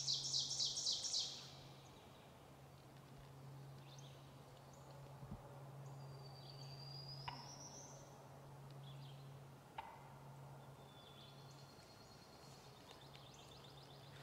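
Songbirds calling in woodland: a loud, rapid high trill in the first second, then scattered short chirps and a rising whistle, over a faint steady low hum.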